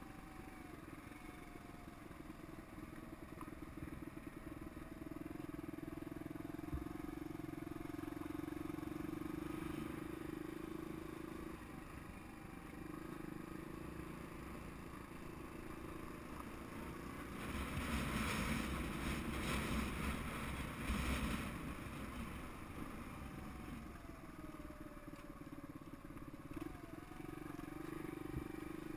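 Suzuki DR200's single-cylinder four-stroke engine running at a steady low pace while the dirt bike rides a rough dirt trail. A louder rushing noise lasts about four seconds in the middle.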